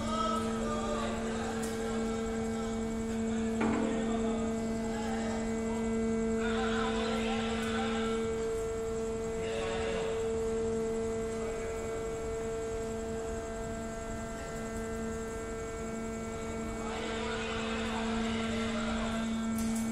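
Steady electric hum of wagon tippler drive machinery, with two strong steady tones and fainter higher ones. Brief rushes of noise come in now and then over it.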